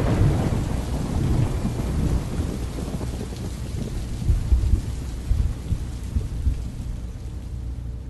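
Thunderstorm: a thunderclap rolls away over steady rain, with a few more low rumbles of thunder in the middle.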